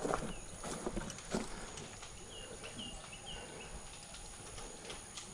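A bird chirping three short times, over faint outdoor background noise, with a few soft knocks in the first second or so.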